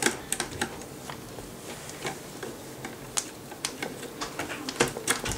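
Irregular light clicks and taps from DDR3 memory modules being handled and pressed into a motherboard's memory slots, plastic on plastic. The sharpest clicks come right at the start, about three seconds in and near the end.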